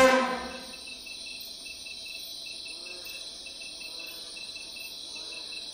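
Music dies away in the first half second, leaving a steady chorus of chirping insects, cricket-like, with a high trill pulsing fast and evenly.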